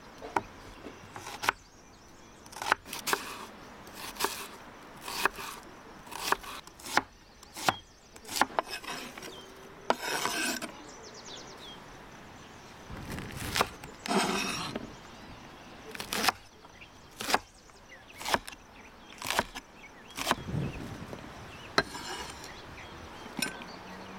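A kitchen knife slicing onion and peppers on a wooden cutting board. Each cut ends in a sharp knock of the blade on the board, roughly once a second and unevenly spaced. A couple of longer crunchy, rustling cuts come about halfway through.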